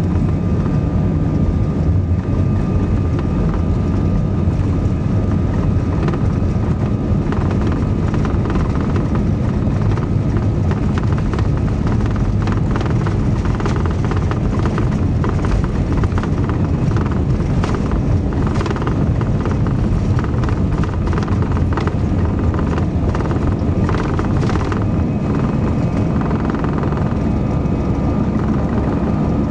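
Airbus A320-214's CFM56 engines running steadily, heard inside the passenger cabin while the airliner is on the ground before takeoff: a deep, even rumble with a faint steady whine. Through the middle there is a run of light clicks and rattles.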